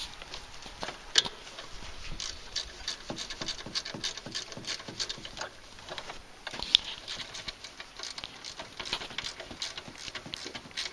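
Irregular light clicks and taps, several a second, of hand tools and metal parts being handled while a snowblower's drive pulley is fitted back on.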